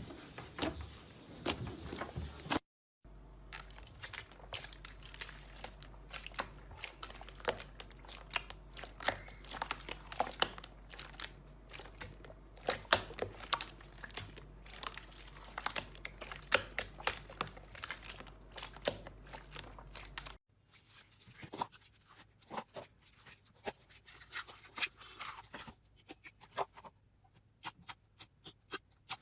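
Slime being squeezed and stretched by hand: a dense run of small sticky crackles, pops and clicks. The background changes abruptly twice, about three seconds in and near twenty seconds, between clips.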